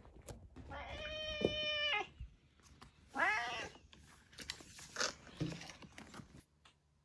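Domestic cat yowling twice with the drawn-out 'fugyaa' cry: first a long held call of about a second, then a shorter cry that rises and falls. A few light knocks follow.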